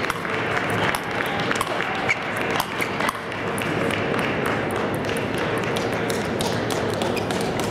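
Table tennis ball clicking irregularly off sandpaper paddles and the table during play. Steady chatter of a crowd in a large hall runs under it.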